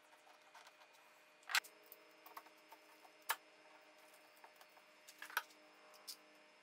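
Steel bar clamps being set onto a wooden glue-up and tightened: a scattering of small clicks and clacks as the jaws and bars are handled, the three loudest spaced about two seconds apart, over a faint steady hum.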